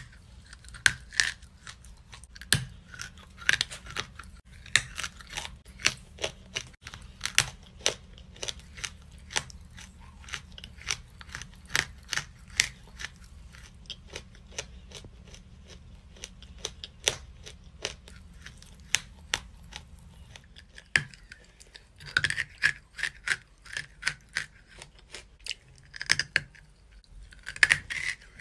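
Close-up chewing of a lump of chalk: a steady run of sharp, crisp crunches, several a second, crowding together more quickly about three quarters of the way through and again near the end.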